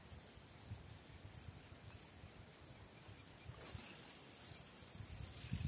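Insects chirping in a steady high-pitched pulsing rhythm, about two to three pulses a second, faint against low outdoor rumble.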